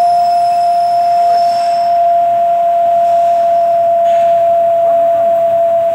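Small milling machine running with a steady high whine, one strong tone that sinks very slightly in pitch.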